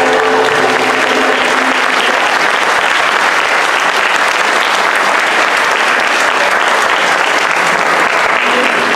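Audience applauding as a choral and instrumental piece ends, the last held notes of the choir and ensemble dying away in the first second or two.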